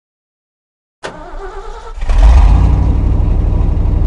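A pickup's 460 big-block V8 engine starts about a second in and then runs loud with a deep rumble from about two seconds in.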